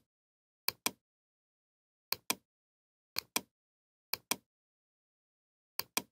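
Computer mouse button clicking: five sharp press-and-release pairs, roughly one a second, with silence in between.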